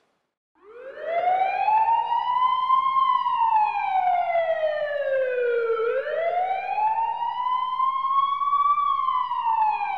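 A siren wailing. Starting about half a second in, it sweeps up slowly and then falls, then rises and falls a second time. Each rise and fall takes roughly six seconds.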